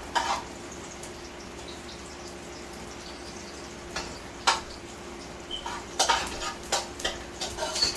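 Chopped red onion frying in hot oil in a pot, a steady sizzle, with a spoon knocking against the pot now and then and a quick run of clicks in the last two seconds.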